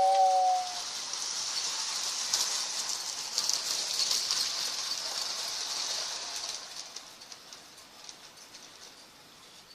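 Lionel model steam locomotive's two-tone whistle ending a moment in, then the train running on the track with a high, light rattling clatter that fades away over the last few seconds.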